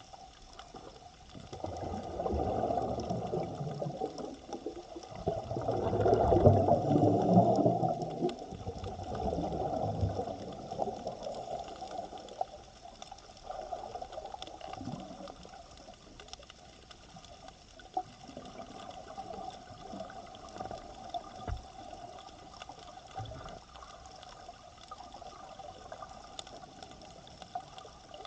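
Underwater sound heard by a submerged camera: muffled surges of rushing, bubbling water for the first ten seconds or so, loudest around six to seven seconds in, then a quieter water wash with scattered faint clicks.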